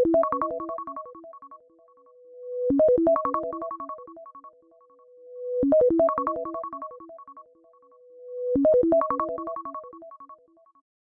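iPhone ringtone from iOS 17: a short synthesized melody of quick bright notes, looping four times about every three seconds. Each loop fades out, then a soft held tone swells up into the next.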